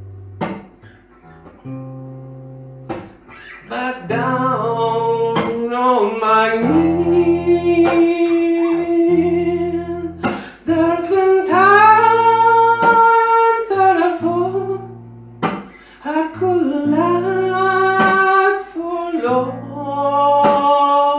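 A man singing a soul ballad, holding long notes that waver in pitch, over a strummed acoustic guitar.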